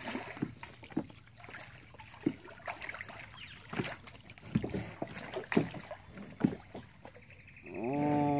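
Kayak paddling: the paddle dipping and pulling through the water, with irregular splashes and knocks about once a second.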